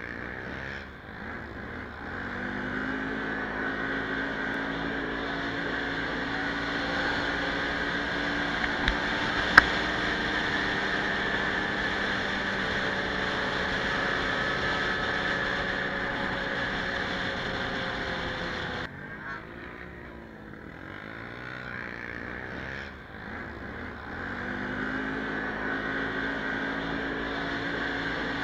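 Quad bike (ATV) engine running while riding, its pitch climbing as it accelerates, then easing off and dropping about two-thirds of the way through before climbing again near the end. One sharp click about a third of the way in.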